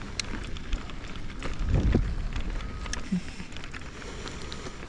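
Mountain bike rolling slowly over dry packed dirt: a low rumble of tyres and wind on the microphone, with scattered crackles of grit under the tyres and a louder low swell about two seconds in.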